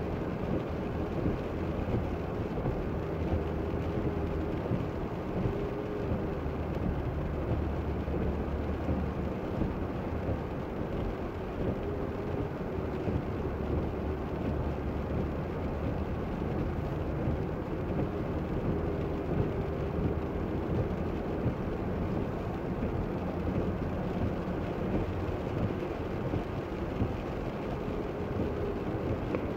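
Steady car-interior driving noise on a wet road: engine hum and tyre noise on wet asphalt, heard from inside the cabin.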